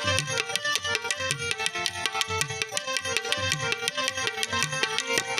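Instrumental break in a Gujarati folk bhajan: harmonium holding steady notes over a fast, even beat of hand drums.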